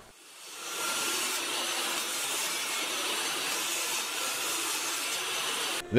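DeWalt D745 table saw ripping a strip of half-inch plywood: a steady rush of the blade cutting through the wood, building over the first second and cutting off suddenly near the end.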